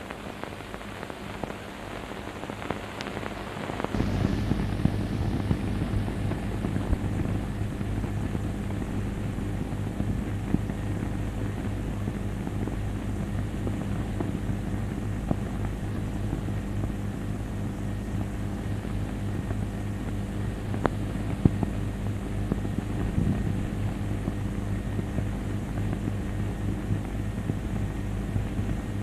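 Steady low hum over the hiss of an old film soundtrack, starting about four seconds in, with occasional clicks.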